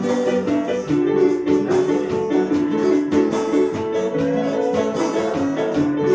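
A small band playing together: a trombone holding notes over a strummed acoustic guitar and electronic keyboards.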